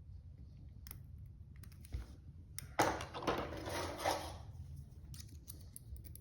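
Small metallic clicks of lock picks working in a padlock's keyway, with a louder stretch of scraping, rustling handling noise about three seconds in that lasts over a second.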